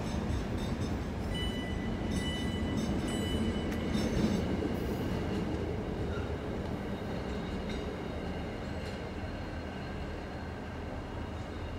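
Container freight train rolling past and away, its wagons rumbling steadily on the rails and slowly fading in the second half. About a second and a half in, a thin high whine sounds for about two seconds.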